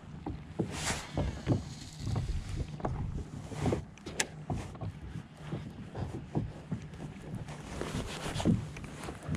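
Choppy water slapping and splashing against a NuCanoe Frontier 12 kayak's hull as it is paddled, in an irregular run of short knocks. Wind gusts on the microphone about a second in and near the end.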